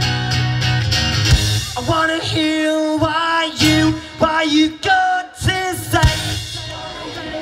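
Rock band playing live: strummed guitar chords over bass, then a sung vocal line over stop-start hits from the band, with short breaks between the hits.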